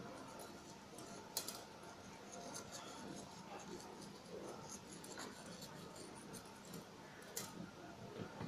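Iron filings sprinkled by hand onto a glass pane: faint, light scattered ticks and grainy patter, with a couple of sharper clicks about a second and a half in and near the end.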